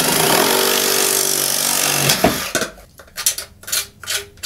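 Reciprocating saw with a fine-tooth metal-cutting blade cutting through PVC pipe, then winding down about two seconds in. A knock follows, then short scraping strokes as a knife trims the burrs from the cut pipe end.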